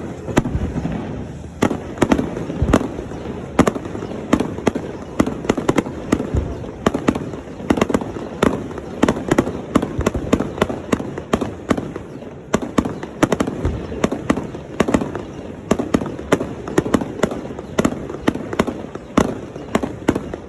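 Fireworks display: a continuous, rapid barrage of sharp bangs and crackles from shells bursting, several reports a second with no let-up.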